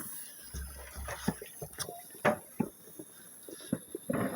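Scattered sharp pops of New Year's firecrackers at irregular intervals, with a short hissing rush near the end as a weak firework rocket goes off.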